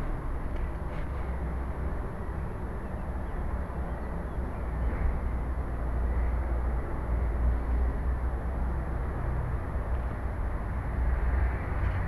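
Steady low rumbling noise from a cheap collar-mounted camera's microphone rubbing against the cat's fur as the cat moves.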